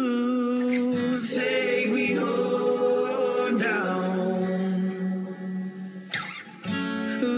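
Song vocals of long held notes in layered harmony, with little or no accompaniment. They grow quieter about five seconds in, then swell back just before the end.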